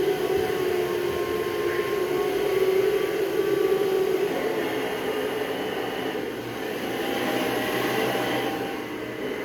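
Hoover Breathe Easy upright vacuum cleaner running steadily, its motor hum shifting a little about four or five seconds in.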